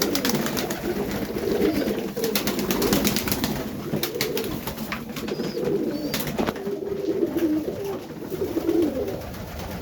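Several Serbian highflyer pigeons cooing, their calls overlapping without a break, inside the loft. A run of sharp clicks comes about two to four seconds in, and another click a little past six seconds.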